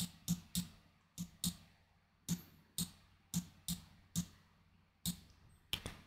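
Computer mouse clicking: about a dozen faint, sharp clicks at uneven intervals, some in quick pairs.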